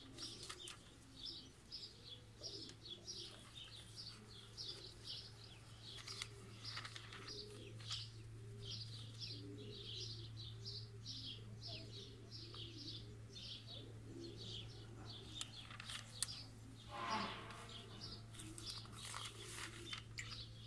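Small birds chirping faintly, short high calls repeated many times a second, over a low steady hum.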